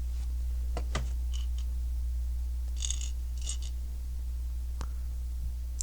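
Lego bricks clicking and clattering as they are handled: a few sharp single clicks about a second in and near the end, and two short bursts of clattering around the middle, over a steady low hum.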